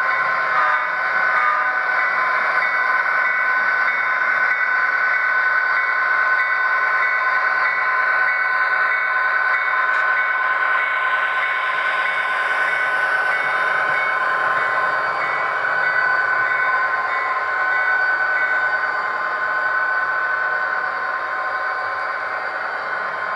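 Train sound: a chord of steady high tones held without a break over a noisy background, easing slightly near the end.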